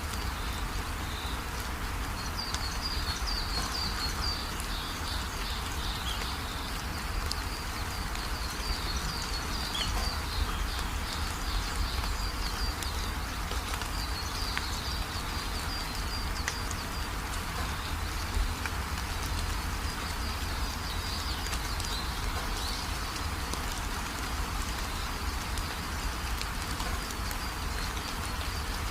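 Steady rain falling, with many small drops ticking. Runs of high chirping come and go over it, and there is a low steady rumble underneath.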